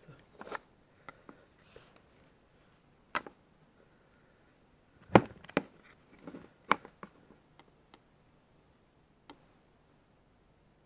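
Hands handling small objects on a workbench: scattered sharp clicks and knocks as things are picked up and set down, the loudest pair about five seconds in, with quiet stretches between.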